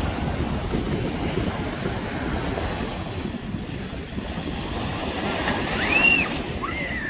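Steady rushing wind noise on the microphone, with a brief high call that rises and falls in pitch about six seconds in.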